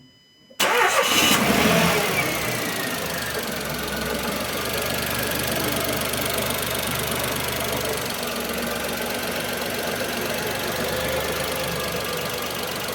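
Dacia Sandero engine starting: a short burst of cranking about half a second in, the engine catches and flares briefly, then settles to a steady idle.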